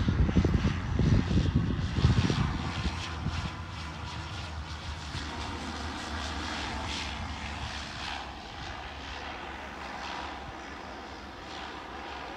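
Airliner engines running loud and deep with a crackling rumble, dropping after about three seconds to a steadier, quieter drone as the aircraft moves away.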